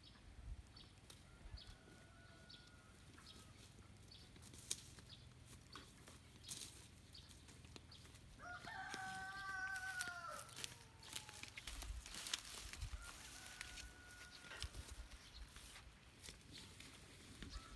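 A rooster crowing: one clear crow of about two seconds, starting about eight and a half seconds in, with fainter crows a little after the start and near the end. Scattered soft clicks and rustles of footsteps through grass.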